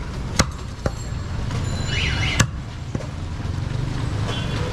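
Sharp knocks of a butcher's blade chopping mutton on a wooden chopping block: two loud strikes about two seconds apart and a couple of lighter ones. A steady low rumble of traffic runs underneath.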